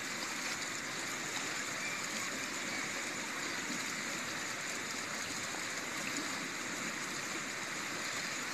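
Mountain river water rushing steadily over stones.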